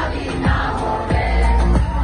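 Live amplified concert music heard from inside the crowd: a band playing loudly with a heavy, sustained bass and regular drum hits.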